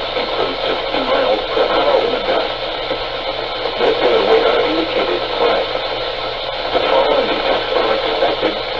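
Radio broadcast heard through heavy static hiss, with a muffled voice barely showing through the noise.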